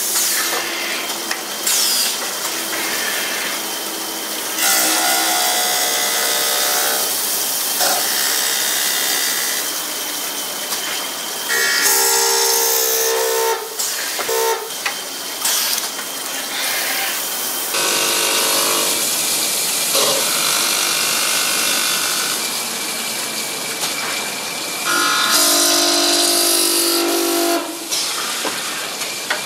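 Automatic glass corner grinding machine's grinding wheel chamfering glass corners under a water spray: a steady hiss with whining tones that come and go every few seconds as the wheel works the glass.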